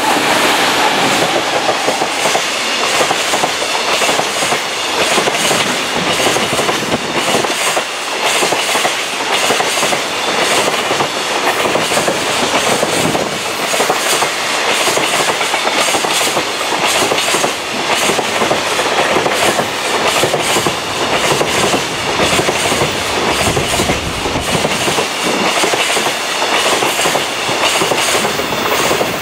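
JR Freight EF200 electric locomotive passing close, followed by a long string of loaded container flatcars rolling by, the wheels clacking over the rail joints with a steady loud rumble.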